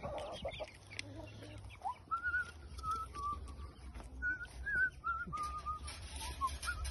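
A bird giving a run of short, wavering, whistle-like chirps, about a dozen in a row, starting about two seconds in.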